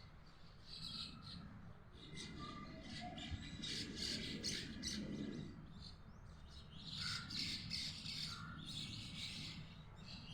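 A flock of birds calling and chirping together, with many overlapping squawks and chirps that come in clusters.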